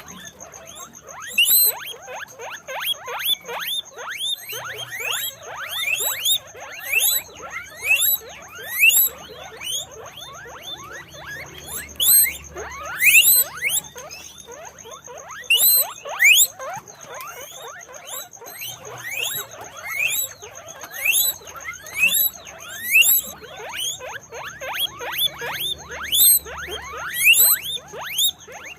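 Guinea pigs squeaking: a steady run of short, high, rising squeaks, often several a second and overlapping one another.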